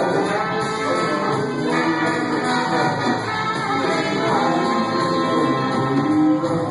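Live band playing a song with singing, at sound check.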